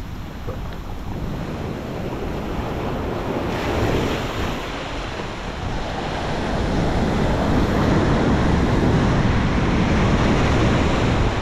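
Ocean surf breaking and foamy water washing up the beach in the shallows. It grows louder about four seconds in and again through the second half as a wave breaks close by.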